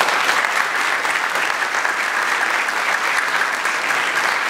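A group of people applauding: steady clapping from many hands.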